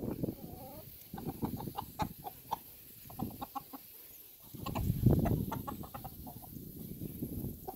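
Chickens foraging and clucking softly, a quick string of short clucks about a second in and more later. A burst of low rumbling noise about five seconds in is the loudest part.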